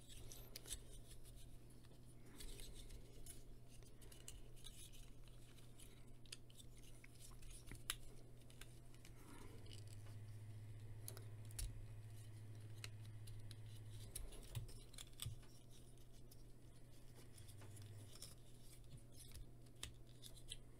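Faint, irregular clicks and scrapes of hard plastic parts on a Transformers Cyberverse Dinobot Slug action figure as its joints are turned and pieces folded during transformation, over a faint steady low hum.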